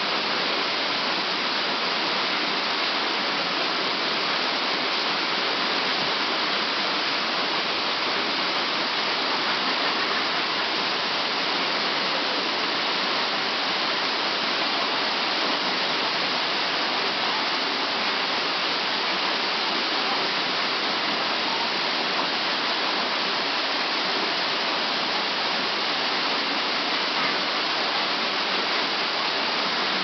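A small waterfall pouring off a rock ledge into a pool: a steady, unbroken rush of falling water.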